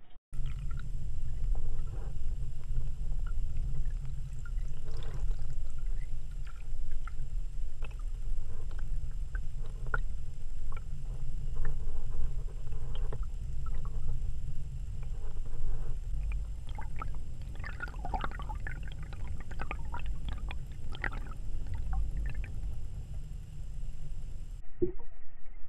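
Sound recorded underwater: a steady low rumble of moving water with scattered small clicks and ticks, busiest about two-thirds of the way in, over a faint steady high whine.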